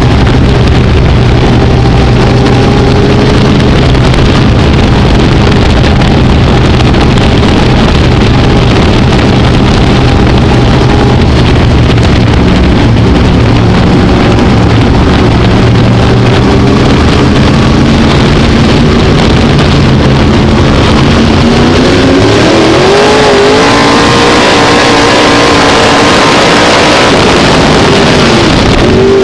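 Dirt-track modified race car's V8 engine heard from inside the cockpit, running hard and loud at racing speed. About 22 seconds in the revs climb steadily as it accelerates, then dip and rise again near the end.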